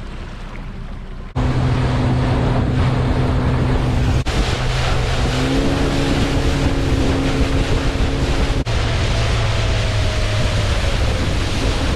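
Honda 100 hp four-stroke outboard running a small aluminium fishing boat at speed, with wind and water rushing past the hull. The loud engine note starts suddenly about a second and a half in, changes abruptly twice, and sits lower in the last few seconds.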